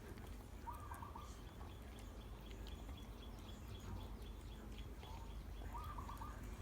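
Faint bird calls: a short warbling call twice, about five seconds apart, with a quick run of high, evenly spaced chirps in between, over a low steady background hum.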